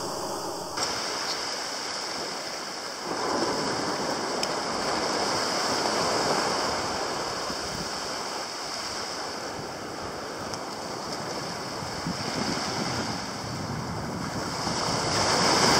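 Small waves breaking and washing up a sandy shore: a steady wash of surf that grows louder near the end.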